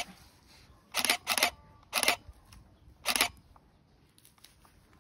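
Camera shutter firing in about five short bursts over the first three seconds or so.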